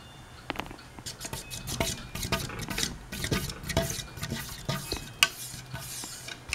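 Harbor Breeze Annalise ceiling fan running on high with a low steady hum. Over it come many rapid, irregular light clicks and rattles, starting about half a second in.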